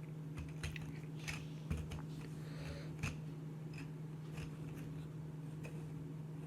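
Scattered light clicks and crunches of handling, over a steady low hum.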